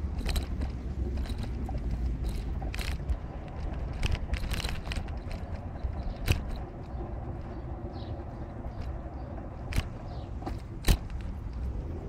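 Steady low outdoor rumble with scattered sharp clicks and knocks, the loudest two near the end.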